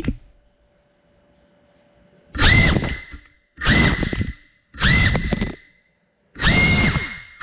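Cinewhoop drone's brushless motors and propellers spinning up in four short throttle bursts about a second apart, each a high whine that jumps up in pitch, holds briefly and then drops away, after a couple of seconds of near quiet with a faint hum.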